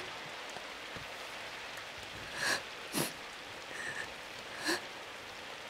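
Steady rain falling, with a few short soft sniffs from a woman.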